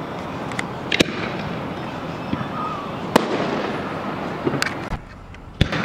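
Aerial fireworks bursting: about four sharp bangs, the loudest about three seconds in and another near the end, over steady background noise.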